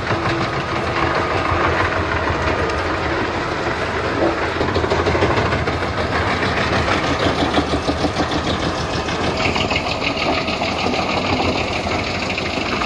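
Heavy machine's engine running steadily under load, with a dense rattling texture; the sound changes character about three-quarters of the way through.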